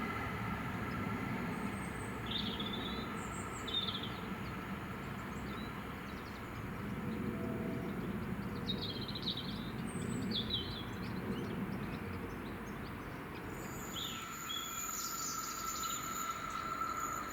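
Birds chirping in short calls, in several bursts, over a steady low background rumble with faint steady tones.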